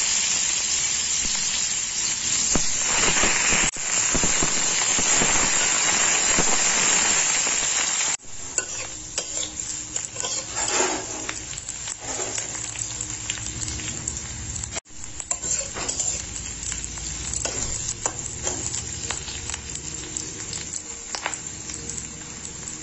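Bitter gourd strips frying in hot mustard oil in a metal kadai: a loud, dense sizzle at first, which drops to a quieter, steady frying about eight seconds in. A spatula stirs and scrapes against the pan throughout.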